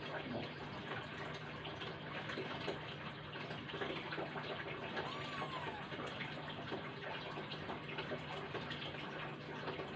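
Steady room noise: an even hiss over a constant low hum, with a faint, brief rising-and-falling call about five seconds in.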